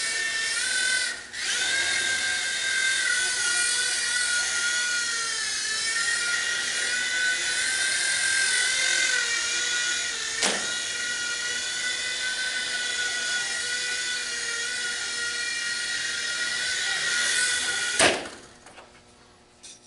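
WLtoy V911 micro RC helicopter's small electric motors and rotors whining steadily in flight, the pitch wavering up and down as the throttle changes, with a brief dip about a second in. A sharp tick comes near the middle, and near the end a knock, after which the whine cuts off.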